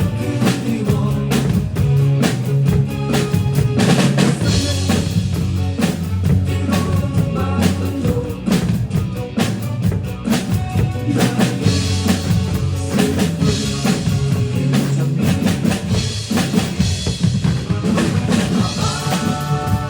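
Drum kit played with a steady beat (kick, snare and rim hits), along with a band track that carries a bass line.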